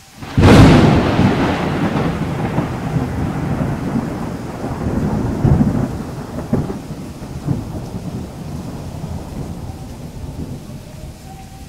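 Thunderclap: a sudden loud crack about half a second in, then a long rolling rumble that slowly fades, with a few smaller rumbles later, over a steady rain-like hiss.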